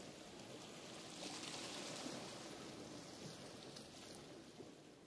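Faint rain ambience with light crackles, slowly fading out.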